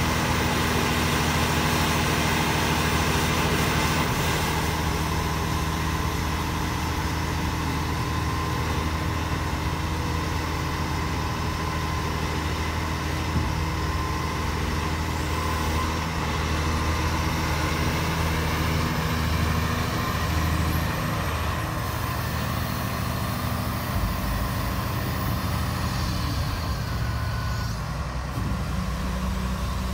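Cat 374 excavator's diesel engine running steadily under hydraulic load, with a steady hydraulic whine. Its note shifts in the second half as the boom and the OilQuick coupler are worked to release and pick up attachments.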